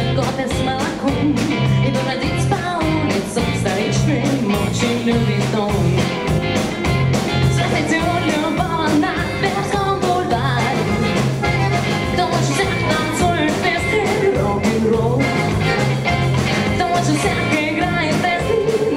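Live band playing an upbeat rock-and-roll cover song with drums, electric guitar, bass guitar and accordion, with a woman singing over a steady beat.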